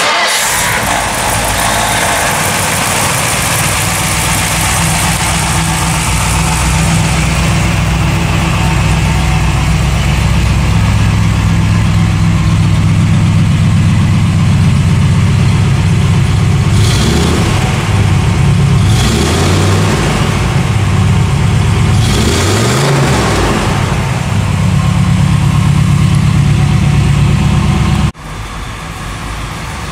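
1960 Ford Sunliner's V8 engine idling steadily, then revved a few times past the middle, the pitch rising and falling before it settles back to idle. Near the end the sound cuts abruptly to a quieter engine sound.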